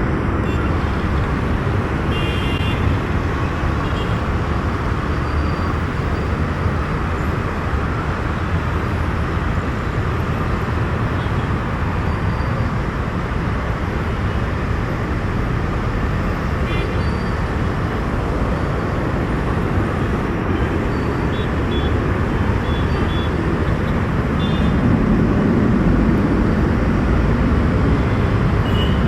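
Jet aircraft engines running with a steady, loud rushing noise, growing louder about 25 seconds in.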